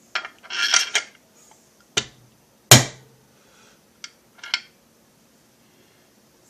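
Hard metal knocks and clatter of the oil-seal installer tool and chainsaw crankcase parts being handled. There is a short rattle near the start, then single knocks, the loudest about two and three-quarter seconds in with a brief ring.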